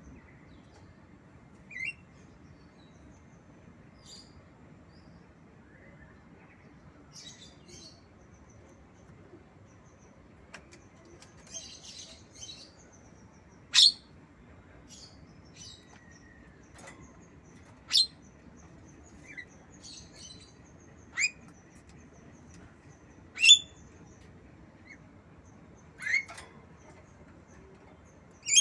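Javan myna giving short, sharp, high squeaky calls every few seconds, mimicking a lovebird, with softer scattered chatter between them.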